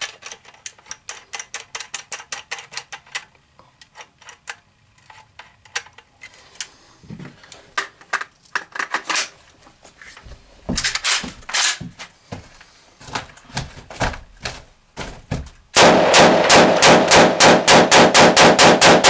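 Yugoslav M92 AK pistol in 7.62x39 with a 4-piece muzzle brake fired in a rapid string of very loud shots, about five a second, starting about three seconds before the end. Before that come metallic clicks and knocks from the rifle being handled.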